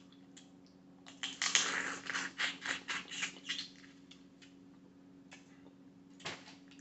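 Boiled crawfish shells cracking and crackling as they are broken and peeled by hand, a quick run of clicks for about two and a half seconds from a second in, then one more crack near the end, over a faint steady hum.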